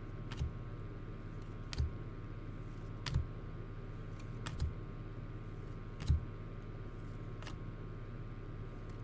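Light taps about every second and a half, six in all, as trading cards are set down one at a time on a table, over a steady electrical hum.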